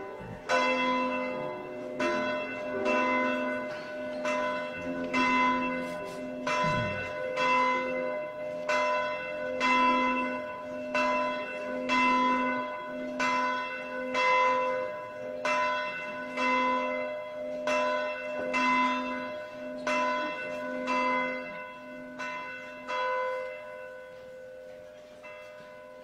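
Church bell tolling in a steady rhythm, about one stroke a second, each stroke ringing on into the next; the strokes stop a few seconds before the end and the ringing dies away.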